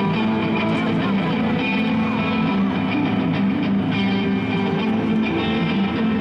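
Loud pop-rock music with guitar played over an arena sound system.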